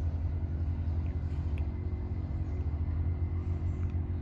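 A steady low mechanical hum, unchanging, with faint steady tones above its deep rumble.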